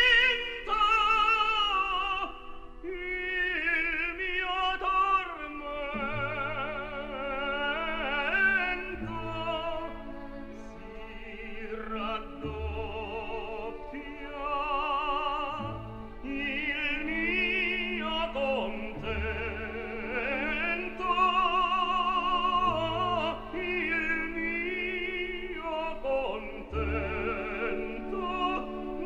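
Background music: operatic singing with a wide vibrato over slow, sustained accompaniment.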